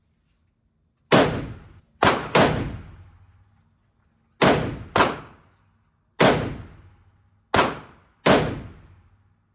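Gunshots at an indoor shooting range: eight shots at uneven intervals, two of them in quick succession about two seconds in, each followed by a long echoing decay.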